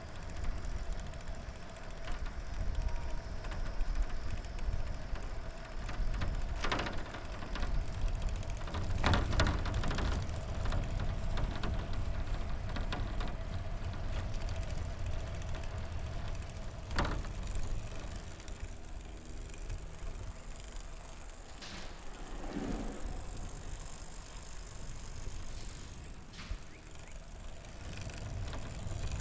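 Recumbent trike rolling along a paved trail: a low rumble of tyres and wind on the microphone with a faint steady whine, broken by several short knocks and rattles from the trike's windshield banging at its bottom mount.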